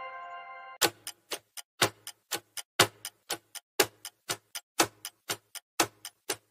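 A ringing chime dies away, then a clock ticking sound effect starts about a second in. It ticks steadily about four times a second, with a louder tick once a second, as a quiz answer countdown timer.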